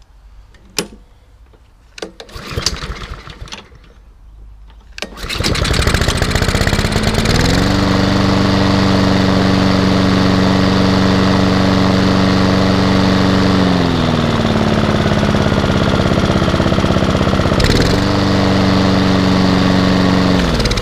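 Honda four-stroke engine on a Hayter rotary lawnmower being started. After a few knocks and rattles it catches about five seconds in and runs up to a steady speed, first time. Its speed sags for a few seconds in the middle, picks back up, and the engine is shut off just before the end.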